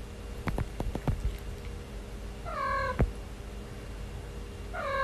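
Domestic cat meowing twice: a short meow about two and a half seconds in and another that starts near the end. A few faint clicks come before them.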